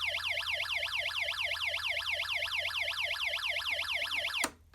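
Electronic fire alarm horn sounding a rapid sweeping alarm tone, several rising-and-falling sweeps a second, which cuts off suddenly near the end.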